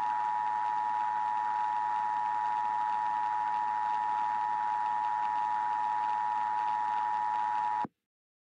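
Emergency Alert System attention signal: a steady two-tone alarm held at one pitch, with a hiss of static and a low hum under it. It cuts off abruptly shortly before the end.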